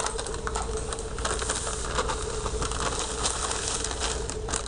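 Dry cake mix pouring out of a crinkling plastic bag into a plastic mixing bowl: a steady run of fine crackles and a soft hiss, over a steady low hum.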